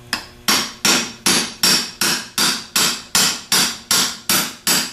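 Hammer striking a half-inch socket extension to drive a new bushing into a 37MT starter's nose cone: an even run of about thirteen metal-on-metal blows, nearly three a second, each one ringing.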